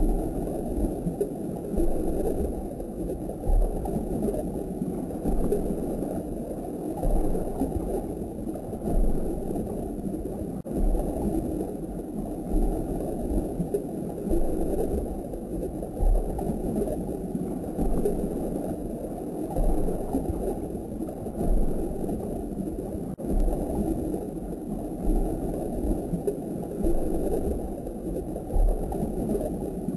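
Muffled steady rushing and gurgling of aquarium water circulation, with soft low thumps every second or two.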